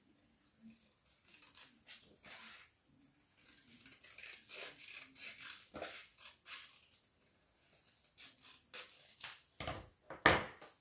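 Scissors snipping paper in a string of short cuts as a picture is cut out in a round. Near the end come two louder knocks as the scissors are set down on the cutting mat.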